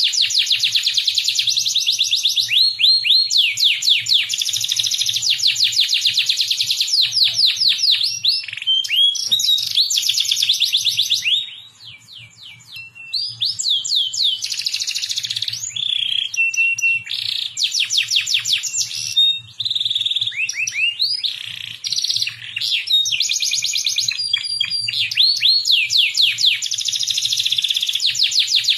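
Domestic canary singing a long song of rapid trills and rolls, each run made of many quick sweeping notes, with a short quiet break about twelve seconds in and a few held whistled notes in the middle. It is a tutor song meant for young canaries learning to sing.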